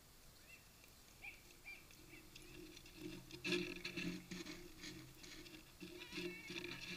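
A horse's hooves crunching on packed snow as it trots up, the footfalls growing louder from about three seconds in as it comes close.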